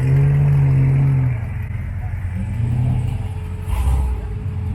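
A car engine revs and holds for about a second, then gives a shorter second rev, over the low rumble of idling engines; a brief low thump comes near the end.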